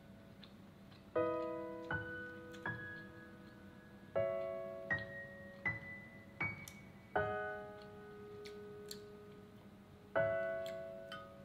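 Slow solo piano background music: a chord struck about every three seconds, with single higher notes in between, each note ringing out and fading.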